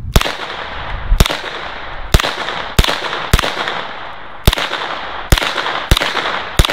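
A 9mm UZI Model B short-barreled rifle firing nine slow, aimed single shots, unevenly spaced roughly a second apart, each followed by a short tail of echo. The shots are a group fired on paper to check the sight zero.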